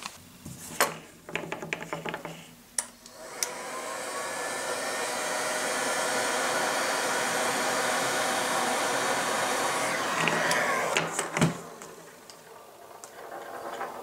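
AEG hot-air heat gun switched on about three seconds in, its fan whining up to a steady rushing blow for about seven seconds while shrinking heat-shrink tubing over soldered wire joints, then switched off and winding down with a falling whine. Clicks and rustles of wire handling come before it, and a single knock after.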